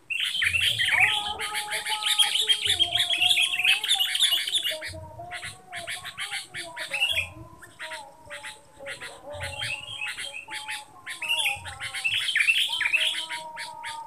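Sooty-headed bulbuls (kutilang) chattering: a dense run of rapid, harsh calls that starts suddenly, thins out about halfway through and picks up again near the end.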